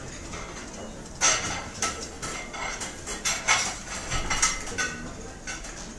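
Restaurant ambience: plates and cutlery clinking and clattering. A run of sharp clinks starts about a second in.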